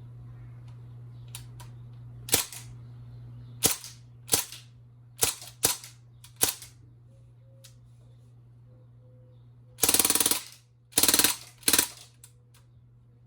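BB machine gun firing: six single shots spaced over about four seconds, then two short bursts of rapid fire and one more shot near the end. A steady low hum runs underneath.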